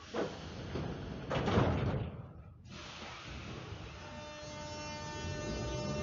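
Metro train noise on the station platform: two rushing surges in the first two seconds. After an abrupt break, the steady hum of a running escalator with a faint whine.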